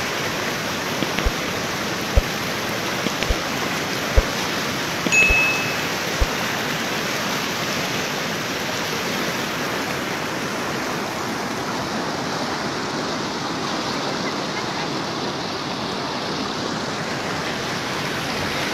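Fast muddy floodwater rushing down a swollen wadi, a steady broad rush of water. In the first six seconds several sharp clicks and a brief high tone about five seconds in sound over it.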